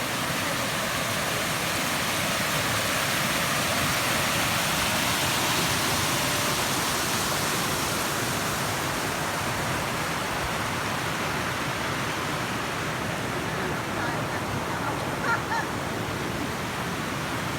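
Waterfall rushing, a steady even noise of falling water, with one brief higher sound near the end.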